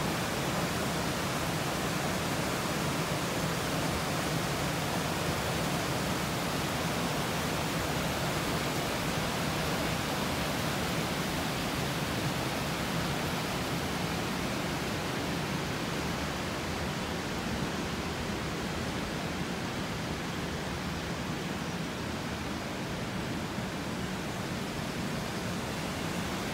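Water of the Tambre river rushing steadily over and around rocks, an even, unbroken rush of running water.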